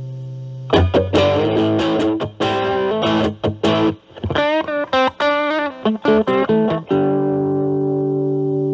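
Electric guitar, a Stratocaster with alnico single-coil pickups, played through an Ibanez Super Metal mini distortion pedal at high drive into a Marshall Valvestate amp's clean channel. A held chord rings, then a run of picked distorted notes with vibrato in the middle, and the phrase ends on a long sustained chord.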